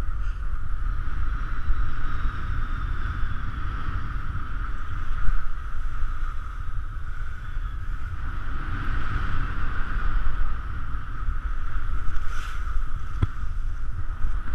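Wind buffeting an action camera's microphone during a downhill ski run, a steady low rumble over the rushing hiss of skis sliding through snow, with a sharp click about 13 seconds in.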